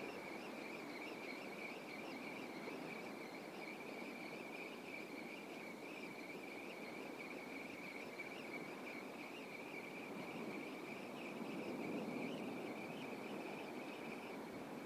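Daiwa Saltiga 4500H spinning reel being cranked steadily in a straight retrieve: a faint, continuous high whir from the gears that stops shortly before the end, over a low hiss of wind and water.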